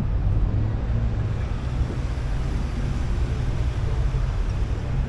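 Steady low rumble of vehicles running, with no single sudden event.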